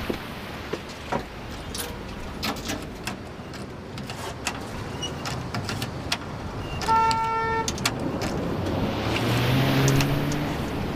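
Steady rain with passing street traffic, sharp clicks scattered through the first few seconds, and a short car-horn toot about seven seconds in. Near the end a vehicle passes, its engine rising in pitch.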